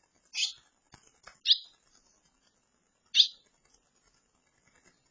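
Barn swallow nestlings giving short, high chirps from the nest: three separate calls over about three seconds, with a couple of faint ticks between the first two.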